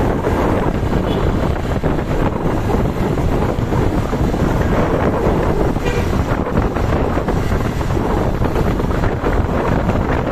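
Steady vehicle rumble and road noise, with wind buffeting the microphone.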